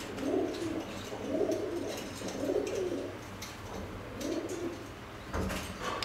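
Pigeon cooing: four low coos, roughly a second apart, with a couple of short knocks near the end.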